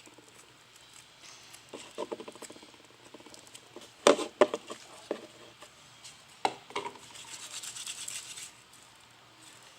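Homemade slime being kneaded by hand: sticky squishing with fine crackling pops, and a few sharper squelches, the loudest about four seconds in and again a couple of seconds later.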